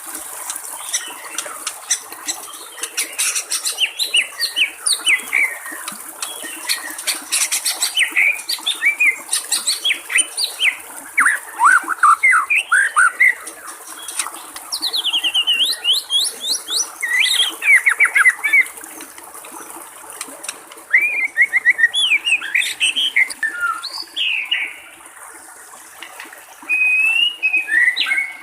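White-rumped shama singing rapid runs of varied whistled notes that sweep up and down in pitch, with a few short pauses, over a steady trickle of water.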